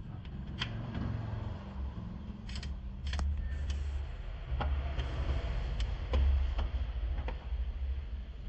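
Scattered light metal clicks and clinks as the brake pads and disc brake caliper are handled and prised with a screwdriver, over a low steady rumble.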